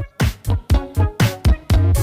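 Background music with a steady, upbeat electronic beat, about four beats a second.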